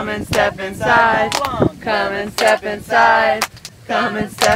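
A group of adults and children singing a Sukkot song together, with long held notes and a few sharp claps between phrases.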